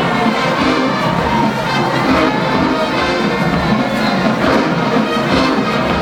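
Marching band brass section playing a loud, sustained passage, with scattered drum hits.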